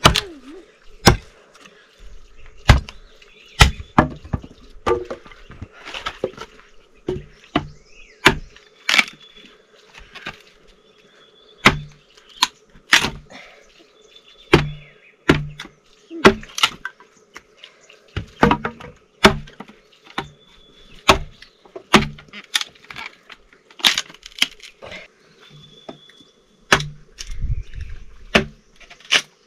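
Repeated sharp knocks and cracks at an irregular pace, roughly one a second, over a faint steady hum.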